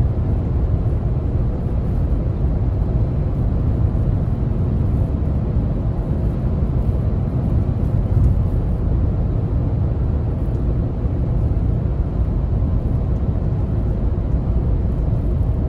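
Steady deep rumble of a moving vehicle, even and unbroken, cutting off suddenly at the very end.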